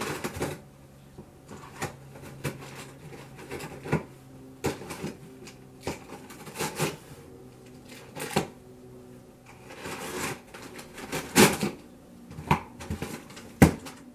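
Irregular knocks, taps and rustles of a cardboard box being handled, tipped and opened, with a few sharper knocks near the end.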